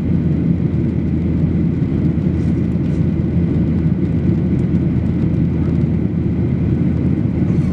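Steady, low cabin rumble of a Boeing 737-800 in flight, its CFM56-7B engines and the airflow heard from a window seat over the wing.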